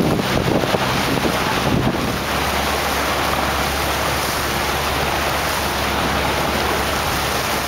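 A boat's motor hums steadily under wind buffeting the microphone and water rushing past the hull of the moving boat.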